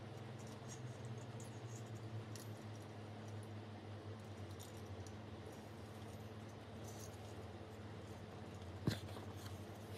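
Faint clicks and small ticks of a metal-and-plastic microphone boom arm and its threaded mount being handled and fitted, over a steady low hum, with one sharper knock near the end.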